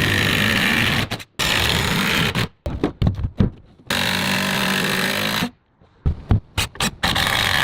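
A power tool running in several runs of a second or so, cut off and started again, with short sharp knocks and taps in the pauses between runs.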